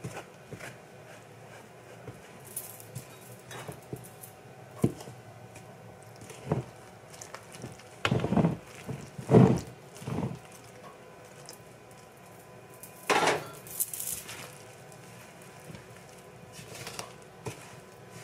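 Fork scraping and knocking against a mixing bowl as it stirs flour and water together into roti dough, in irregular strokes, with a run of louder scrapes about halfway through and another a few seconds later.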